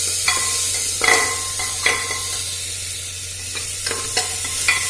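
Onions and tomatoes frying in oil in an aluminium pressure cooker, sizzling steadily, while a spoon stirs them and scrapes and knocks against the pot about once a second.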